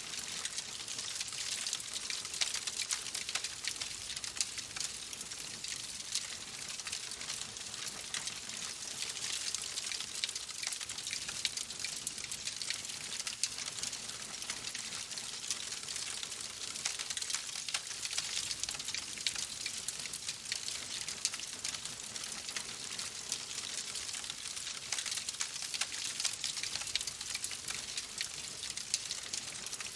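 Oak logs burning in a fireplace: a steady hiss of flame with dense, fine crackling and snapping throughout.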